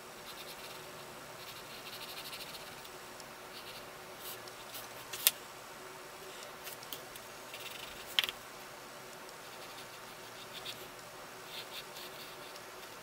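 Wooden graphite pencil scratching lightly on paper in short, intermittent sketching strokes. Two sharp clicks stand out, about five seconds in and again about eight seconds in.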